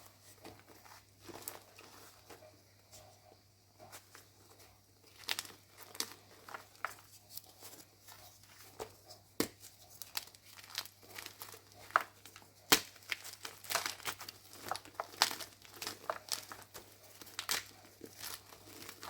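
Blocks of gym chalk being crushed and crumbled, giving crisp, irregular crunches and crackles. They are sparse at first and come thick and louder from about five seconds in.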